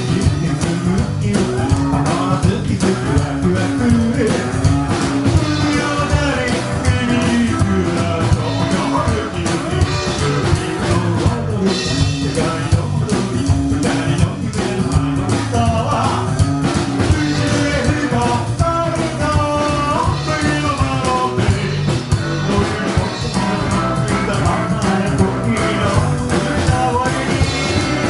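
Rockabilly band playing live, a boogie-woogie number with a steady driving beat and a singer's voice.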